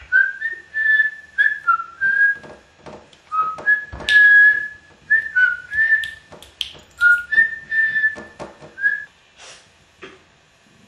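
A boy whistling a tune of short notes that slide between a few pitches, with a knock about four seconds in; the whistling stops about nine seconds in.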